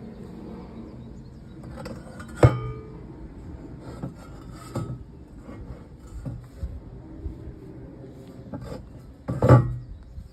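Metal pinball machine legs knocking together as they are handled: a sharp clank about two and a half seconds in that rings briefly, a few lighter knocks, and another loud knock near the end.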